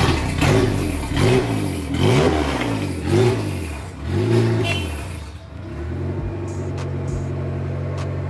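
A K-swapped Honda Civic's K-series four-cylinder engine, just started cold on E85 fuel, is revved up and down about five times. From about five seconds in it settles into a steady idle.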